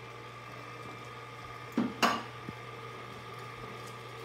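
Stand mixer motor running steadily at low speed, its wire whisk mixing brownie batter in a steel bowl, with two brief knocks about two seconds in.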